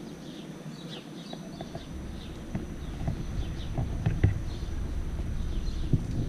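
Small birds chirping, many short chirps, over a low rumble of riding noise on the microphone that grows louder about two seconds in, with a few sharp knocks.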